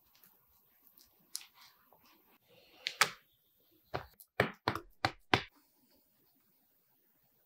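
Hands working a buttered sheet of bread dough on a pastry board: faint rubbing as the butter is spread, then about six sharp taps and soft thumps as the dough is folded over and pressed down, in a burst from about three seconds in until past the middle.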